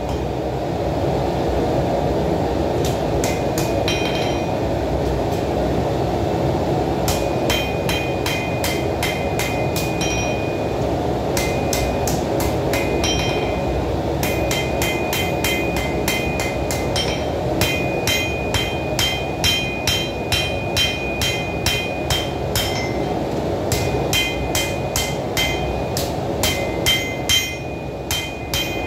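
Hand hammer striking red-hot steel on an anvil, forging a knife blank from heavy-machinery flange steel. The blows come in runs of about two a second, each with a bright metallic ring, over the steady rushing noise of the lit forge.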